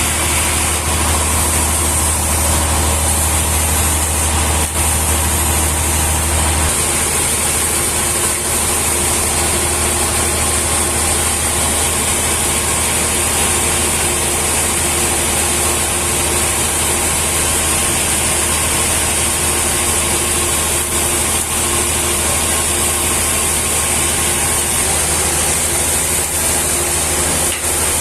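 Sawmill machinery running steadily with an engine-like drone. A deep low hum drops in level about seven seconds in.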